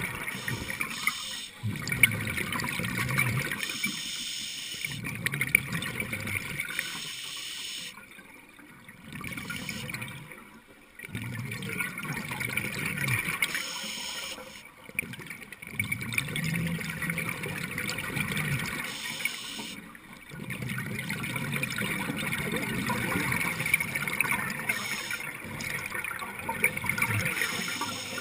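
Scuba exhaust bubbles rushing and bubbling underwater as a diver breathes out through the regulator, in long stretches broken by a few short quieter gaps.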